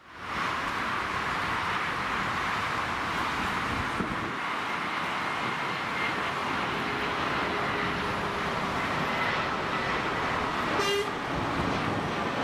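Airbus A320 twin-jet on final approach with gear down: a steady rushing drone of its jet engines with a faint high whine running through it. A brief sharp tone sounds near the end.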